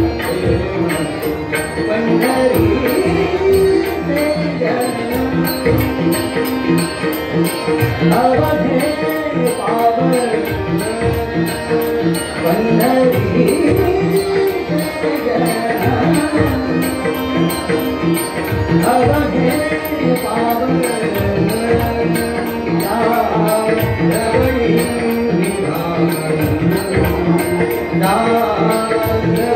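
Abhang singing: a male voice in a gliding devotional melody, accompanied by tabla strokes and held harmonium notes.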